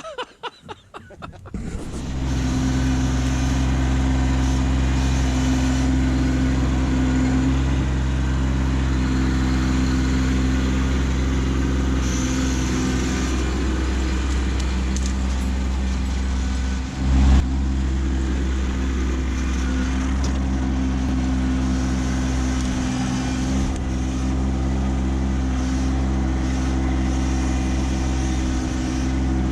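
Kubota B2601 compact tractor's three-cylinder diesel engine running steadily at a constant speed. It briefly dips and picks up again about two-thirds of the way through.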